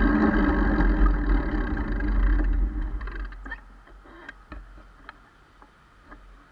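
Wind buffeting and road rumble on a handlebar-mounted bike camera, loud at first and dying away over about three seconds as the bicycle slows to a stop at a red light. Afterwards a few faint, scattered clicks.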